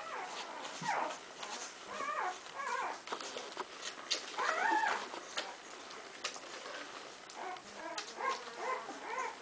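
Young golden retriever puppies whimpering and squeaking while they nurse, many short high cries, several at once, with a few soft clicks among them.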